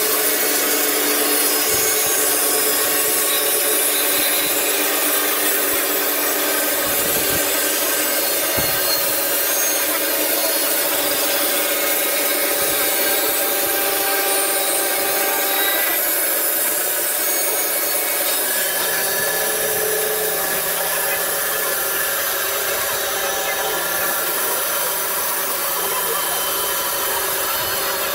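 Horizontal band sawmill cutting lengthwise through a large log: the band blade running through the wood makes a loud, steady sawing noise. About two-thirds of the way through, a low steady hum joins it.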